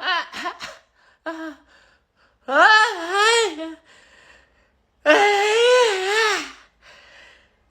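A high-pitched voice making four drawn-out, wordless cries that waver up and down in pitch, the two longest each lasting over a second.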